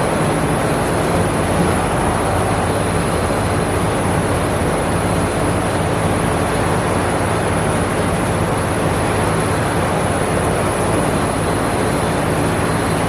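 A loud, steady mechanical roar with a low hum running under it, cutting off abruptly at the end.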